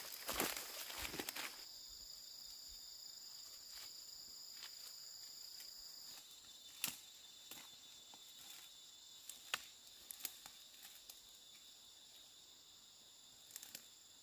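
Insects chirring in a steady high-pitched note, with scattered sharp clicks and light knocks. The first second or so is louder, with rustling and knocking.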